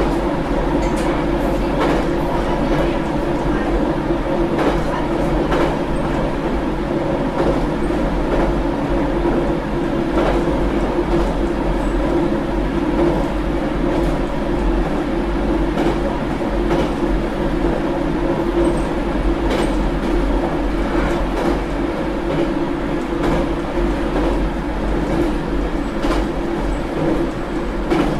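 JR Kyushu 817 series electric train running between stations, heard from inside the car: a steady rumble of wheels and running gear with a constant hum, and scattered sharp clicks over the rail joints.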